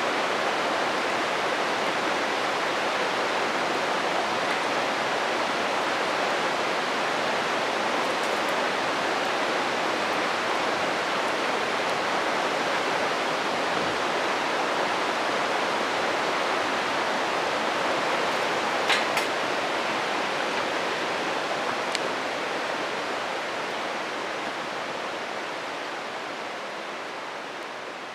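Steady rushing of a stream, with a couple of sharp pops from a wood campfire in the latter part; the whole sound slowly fades down near the end.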